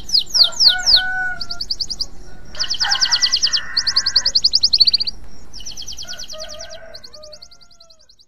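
Male canary in breeding condition singing: a run of fast trills, each a rapid string of repeated high notes, one trill type giving way to the next. The song fades out near the end.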